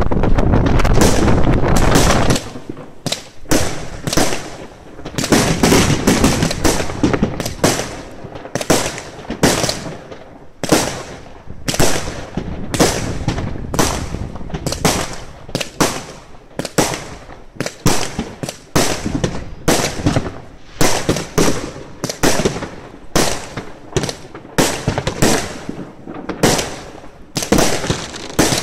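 Consumer aerial fireworks launching and bursting, shot after shot: sharp bangs about one to two a second, with crackling between them. The run opens with about two seconds of dense continuous noise.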